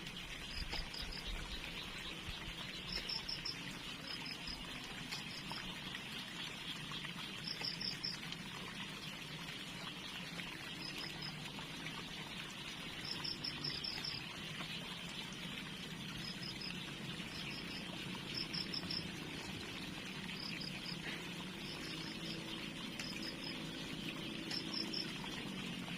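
Water trickling and pouring steadily in a small stream, with short groups of high chirps repeating every second or two.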